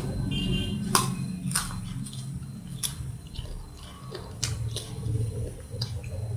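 Baby monkey biting and chewing a raw guava: a scattered series of sharp, crisp crunching clicks about half a second to a second apart, over a low background hum.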